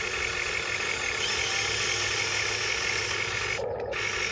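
Diecast Masters 1:20 CAT 330D L RC excavator whirring steadily as its boom and bucket work a scoop of gravel: a high-pitched mechanical whine with several steady tones.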